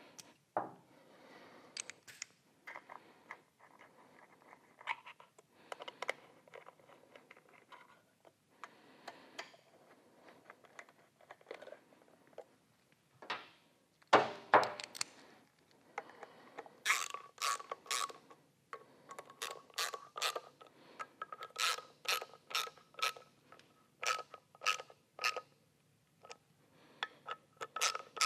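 Hand ratcheting screwdriver clicking as screws are driven into a motorcycle air cleaner's backing plate, in a run of sharp clicks about two a second in the second half. Before that, scattered tool and parts handling sounds, with one louder knock about halfway through.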